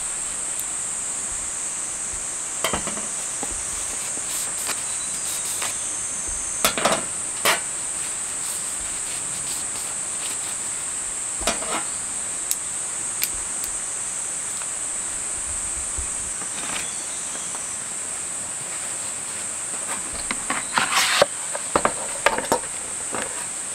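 Insects buzzing in a steady, high continuous whine, over sharp clicks and clacks of kitchen scissors being handled and pulled apart, with a flurry of plastic clatter near the end as a cutting-board case is handled.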